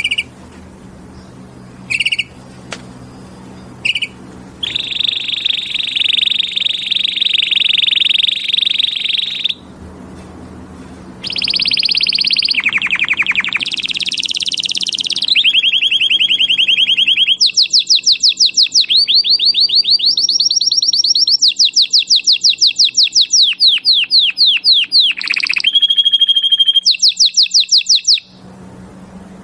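Canary singing: a few short high chirps, then a long song of rolling trills and rapid repeated notes whose pitch and speed change from phrase to phrase, stopping about 28 seconds in.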